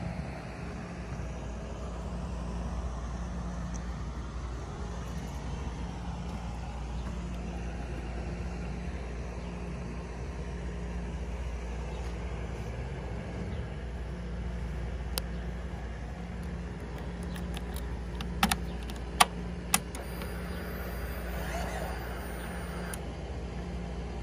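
Steady low outdoor rumble, then a handful of sharp clicks and a brief thin whine near the end as the Ducati Panigale 1199's ignition is switched on and the dash lights up, with the engine not yet running.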